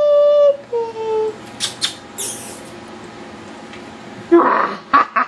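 Yorkshire terrier puppy whining: a squeal that rises and then holds briefly, followed by a shorter falling whine. Near the end comes a cluster of short, rough, loud bursts.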